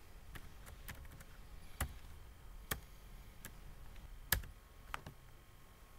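Computer keyboard keystrokes: a handful of separate, unevenly spaced key clicks, the loudest a little past four seconds in.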